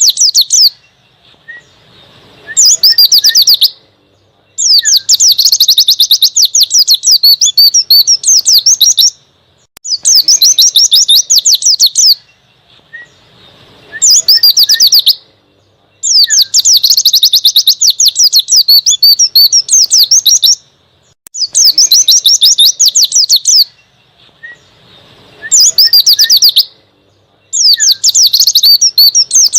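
A white-eye (pleci) singing the 'ngalas' wild-type song: loud, fast, high warbling phrases a few seconds long, separated by pauses of about a second.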